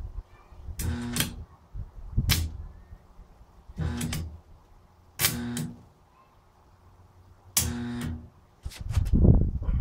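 Arc welder striking a series of short tack welds: five or six separate bursts of about half a second each, a buzzing hum with crackle. Near the end comes a longer, louder stretch of low crackling.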